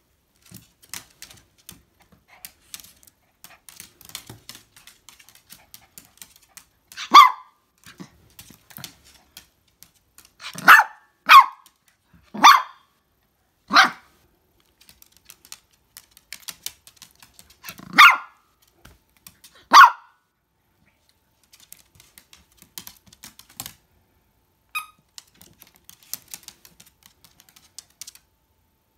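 Toy poodle barking in short, sharp yaps, about seven in all, three in quick succession around the middle. Its claws tap and click on the wooden floor throughout.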